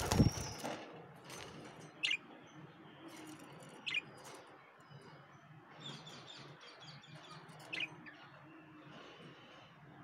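Pet budgerigars in a wire cage: a burst of wing flapping at the start, then short high chirps about every two seconds, with a quick run of soft chirps around six seconds in.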